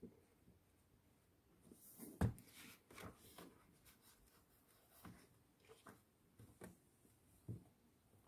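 Quiet rustling and soft ticks of book pages being handled and turned, with one sharper tap about two seconds in.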